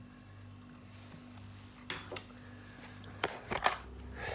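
A few light metallic clinks and knocks, spaced irregularly, over a low steady hum.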